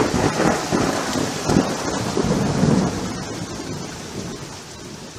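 Rolling thunder over steady rain, dying away gradually.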